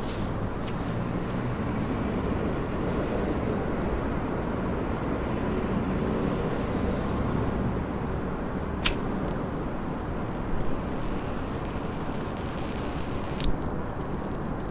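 Steady low rumbling ambience with a sharp click about nine seconds in and two fainter knocks later.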